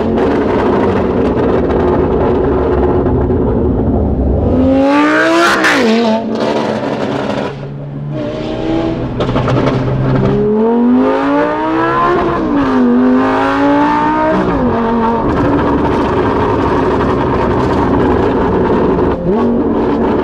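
Lamborghini Gallardo Super Trofeo Stradale's straight-piped V10 running loud and steady, then revving up and dropping back several times as it accelerates through the gears. There is a sharp crack from the exhaust about five seconds in.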